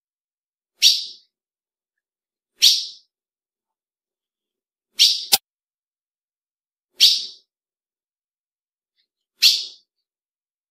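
Female ultramarine grosbeak (azulão) giving a short, sharp call five times, about every two seconds: the female's call that stirs up male azulões. A brief click follows right after the third call.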